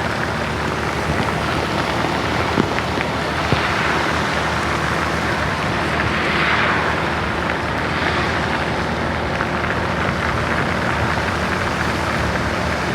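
Steady hiss of rain and wet road under a moving vehicle, over a low engine hum, swelling briefly a little past the middle.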